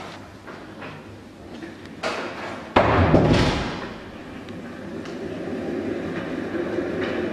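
A door bangs shut about three seconds in, sudden and loud, with a short echo in a hard-walled corridor; a lighter knock comes just before it. After that a steady low hum sets in and grows.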